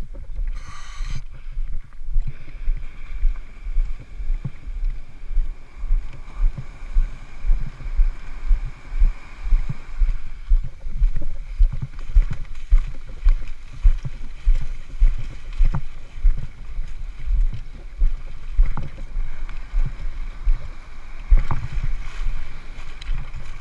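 Seawater sloshing and splashing against a camera held at the surface in breaking surf, with an uneven run of low thumps, about one or two a second.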